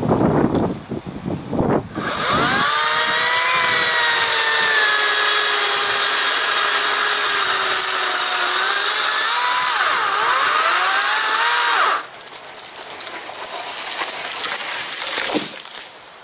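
Ryobi 40-volt brushless battery chainsaw cutting through a small spruce trunk: the electric motor spins up about two seconds in with a steady high whine, its pitch sagging under load and dipping briefly near the end of the cut, then stops suddenly about twelve seconds in.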